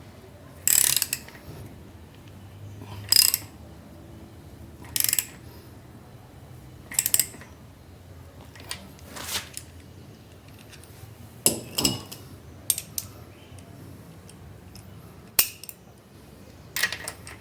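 Ratchet wrench clicking in short bursts, about every two seconds, as a motorcycle swingarm bolt is tightened.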